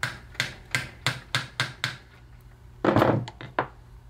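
Small hammer tapping a ground-down 5/16 square-drive socket onto a square-headed field coil bolt in a tractor starter's steel case: about seven quick metallic taps, roughly three a second. About three seconds in comes a louder clatter, followed by a couple of clicks.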